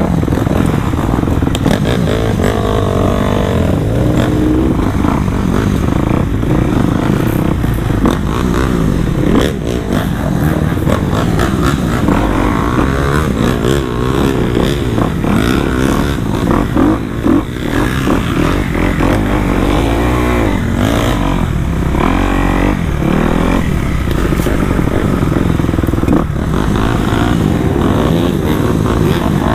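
Dirt bike engine running close up as it is ridden, its pitch rising and falling over and over as the throttle is opened and closed.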